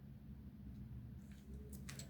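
Quiet steady low hum with a few faint light clicks in the second half.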